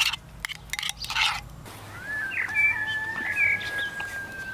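Songbirds singing: one long, steady whistled note held for about three seconds, with short chirps over it. A few short noisy bursts come first, in the first second and a half.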